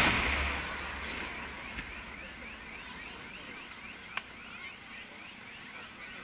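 The echoing rumble of a large aerial fireworks shell that has just burst, fading over about two seconds, then a sharp distant crack of another burst about four seconds in. Faint short rising chirps repeat about four times a second under it.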